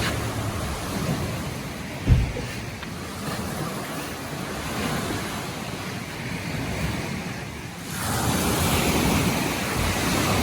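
Ocean surf washing onto a beach, a steady rush that swells and ebbs, growing louder as a wave comes in about eight seconds in. A brief low thump about two seconds in, with some wind on the microphone.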